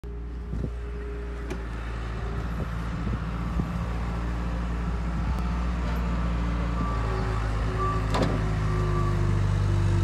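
Skid steer loader's engine running steadily while grading dirt, its pitch shifting now and then and growing louder through the clip, with a few sharp clanks.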